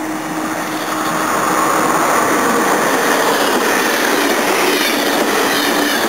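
Amtrak Keystone passenger train with an ex-Metroliner cab car leading, approaching and passing close by: the noise of wheels on rails grows about a second in and then stays loud and steady as the cars go by.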